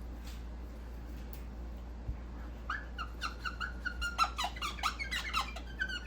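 Squeaking strokes of rubbing on a small dry erase board, starting about two and a half seconds in and coming several times a second.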